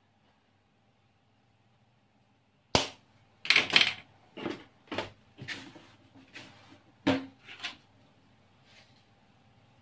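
Ground black pepper shaken from a container into a bowl of flour: a sharp click, then about eight short shakes over four seconds.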